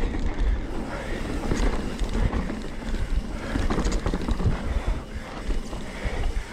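Mountain bike tyres skidding and scrunching through loose dirt on a steep descent, with irregular knocks and rattles from the bike and wind rumbling on the microphone.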